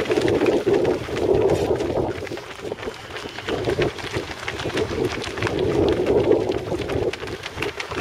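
Footsteps of a group of runners' shoes slapping on asphalt as they pass, heard as many quick uneven footfalls. A rumbling rushing noise swells and fades under them, loudest in the first two seconds and again about six seconds in.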